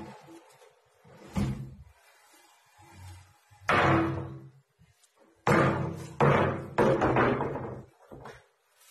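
Wooden knocks and thuds from a wall-mounted fold-away wooden table-and-seat unit as its hinged panels are folded up and pushed shut against the wall. A single knock comes about a second and a half in, a loud one near the middle, then three loud knocks in quick succession after it.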